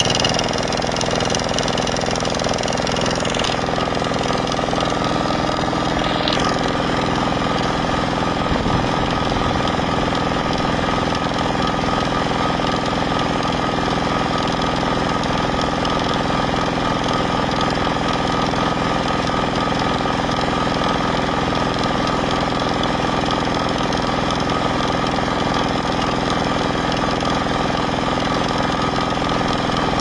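Kubota single-cylinder diesel walking-tractor engine running at a steady speed, belt-driving a circular sawmill blade that spins free without cutting.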